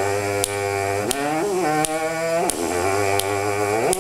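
Trombone mouthpiece buzzing on its own: a lip-slur exercise switching between a high buzz and a low buzz, a second or so per note, with short slides between the pitches. Finger snaps keep a steady beat, about one every 0.7 s.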